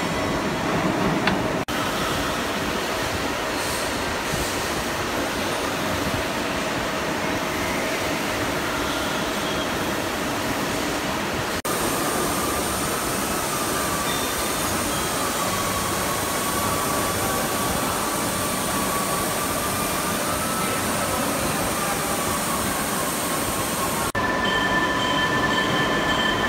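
Steady machine noise from a CNC press brake and the workshop around it, an even drone with no clear rhythm, shifting abruptly three times. A faint wavering whine sits over it in the middle part.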